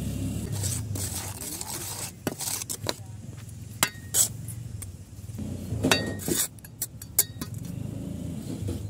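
Metal hand trowel scraping wet concrete and clinking against a metal baluster mould, in a handful of short, sharp strokes, over a low steady hum.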